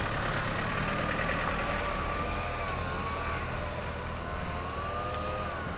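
Land Rover Defender's engine running steadily as it manoeuvres a boat trailer carrying a RIB on the slipway, with a thin, slowly wavering tone above it.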